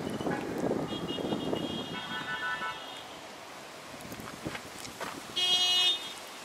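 Street traffic noise, then a vehicle horn sounds one short toot near the end, the loudest sound here. A fainter, higher tone is held for about two seconds in the first half.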